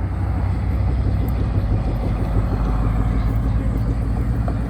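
Car engine running loud and low with an even, pulsing exhaust note, growing louder at the start and then holding steady as the vehicle moves off.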